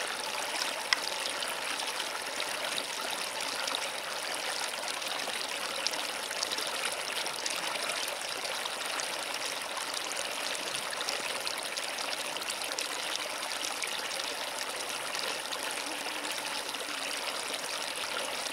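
Shallow taiga river running fast over stones: a steady babble and rush of water.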